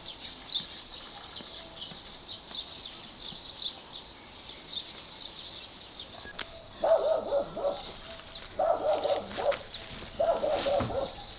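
Small birds chirping over and over. From about seven seconds in, a dog barks in three bursts of about a second each, louder than the birds.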